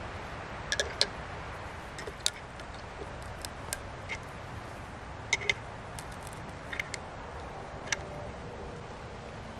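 Flint struck with a C-shaped fire steel: about fifteen sharp metallic clicks at uneven intervals, several in quick pairs, over a steady low hiss.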